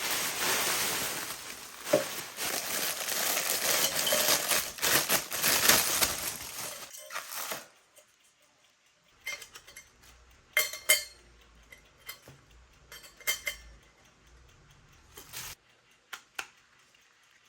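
Dishes and cutlery being handled at the kitchen sink: a dense, steady rush of noise with clatter for about the first seven and a half seconds, then it stops and there are a few scattered sharp clinks and knocks.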